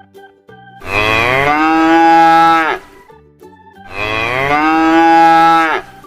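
A cow mooing twice: two long calls of about two seconds each, a second apart, each tailing off at the end.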